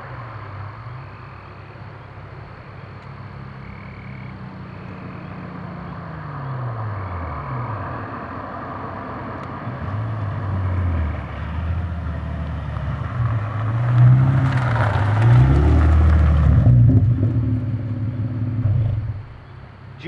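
A 2009 Nissan 370Z's 3.7-litre V6 through long-tube headers and a non-resonated catback exhaust with carbon-fibre mufflers, driving toward the listener from a distance. The revs rise and fall, and the exhaust grows loud as the car accelerates close by about two thirds of the way in, then drops off near the end.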